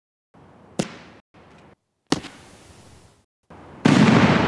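Consumer fireworks going off: two sharp pops about a second apart, then, near the end, a loud steady blast of noise as a firework erupts in a cloud of smoke.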